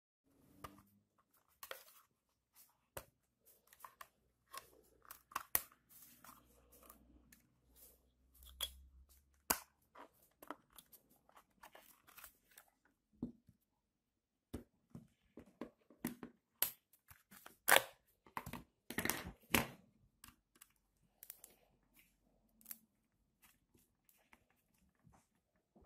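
Irregular plastic clicks, snaps and scraping as the black plastic housing of a Renault Laguna II key-card reader is prised apart by hand with a small tool. The loudest run of clicks comes about two-thirds of the way through.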